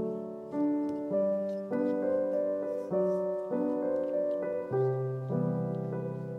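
Background piano music, with the notes and chords changing about every half second.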